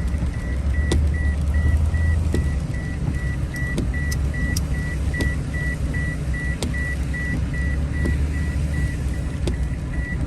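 Inside a moving car, a steady low engine and road rumble with an even high beep repeating about twice a second. The beep is the seatbelt-warning chime, sounding because the driver's seatbelt is unbuckled. A few faint clicks come through now and then.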